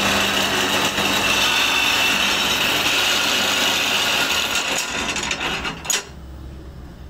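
Motor-driven wood lathe turning and shaping a long wooden snooker cue shaft, running steadily with a hum and a high hiss of wood being worked. About six seconds in there is a sharp click, and the machine noise drops sharply.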